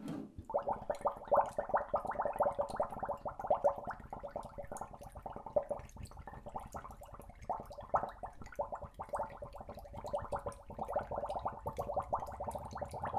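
Several glass bottles filling with water in a sink, making a rapid, continuous bubbling with many quick clicks. It starts about half a second in.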